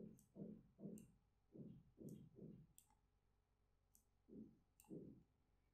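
Faint computer mouse clicks, about eight short dull clicks spaced irregularly, with a pause of nearly two seconds in the middle.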